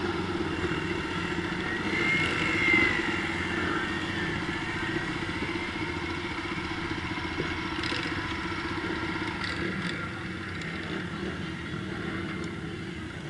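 Supermoto motorcycle engine running steadily at low revs while the bike rolls at walking pace, with a brief rise and fall in pitch about two seconds in.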